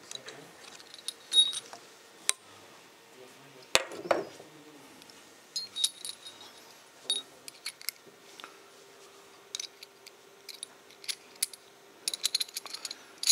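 Small metal parts clinking and clicking in the hands: the body, nut and split retainer rings of a WardFlex StepSaver CSST compression fitting being handled. Irregular light clinks throughout, with a sharper click about four seconds in and a quick run of clinks near the end.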